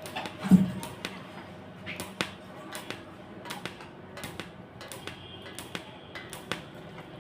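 Irregular light taps and clicks on metal, with one louder knock about half a second in.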